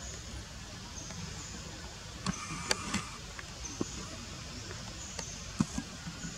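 Outdoor ambience: a steady background hiss with scattered light clicks and faint short high chirps recurring about once a second.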